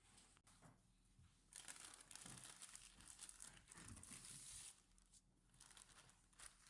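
Packaging crinkling and tearing, a rustling stretch that is loudest from about one and a half seconds in to just under five seconds in.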